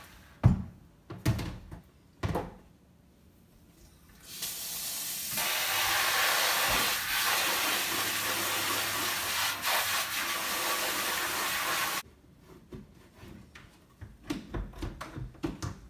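Kitchen faucet running water into a plastic Coopers fermenter to fill it to the 4-litre mark, a steady hiss of about eight seconds that starts about four seconds in and cuts off sharply. A few knocks come before it as the bucket is set into the sink.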